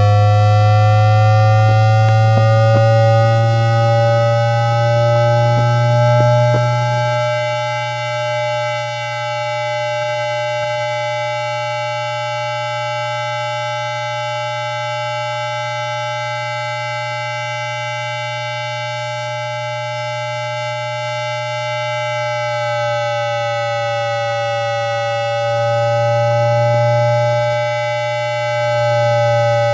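The IGBT-VVVF traction inverter and induction traction motors of a Beijing Subway Line 5 train, heard through an inductor (magnetic pickup) recording as a chord of electronic tones over a low hum. The tones rise in pitch for the first several seconds as the train accelerates, then hold steady, dipping slightly about two-thirds of the way in.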